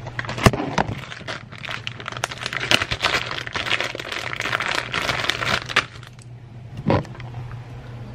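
Clear plastic zip-top bag crinkling and crackling as it is handled, with many sharp little crackles. A single thump comes near the end.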